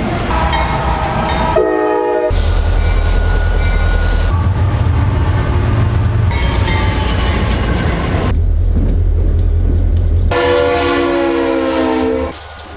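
Diesel freight locomotive air horns sounding chords: two blasts back to back at the start and a longer one near the end. In between, the low rumble of locomotives and freight cars passing, changing abruptly every couple of seconds.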